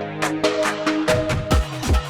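Electronic background music with a steady beat and held synth notes; deep falling bass hits come in about halfway through.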